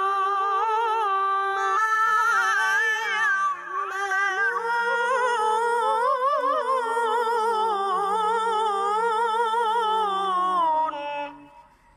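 A young male reciter chanting the Quran in melodic tilawah style, drawing out one long ornamented phrase with a strong wavering vibrato, then stopping about eleven seconds in.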